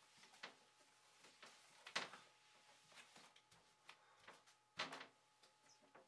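Faint swishes of a Wagtail squeegee's rubber blade drawn across a wet, soapy glass mirror. There are several short strokes, the two loudest about two seconds and about five seconds in.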